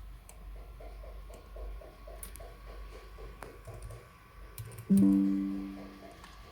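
A single loud plucked musical note about five seconds in, ringing and fading over about a second, over faint, evenly repeating soft background sounds.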